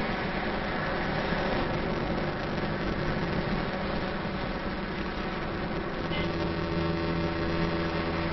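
Car driving, heard from inside the cabin: steady road and wind noise, with a low engine hum that comes up about six seconds in.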